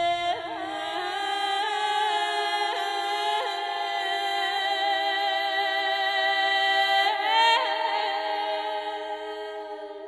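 Slow music of long-held notes with small ornaments over a steady drone, fading out near the end.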